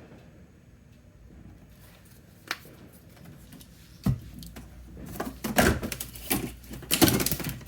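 Paint bottles and cups being handled on a worktable: a single click, then a thump about four seconds in, then a quick run of knocks and clatter near the end.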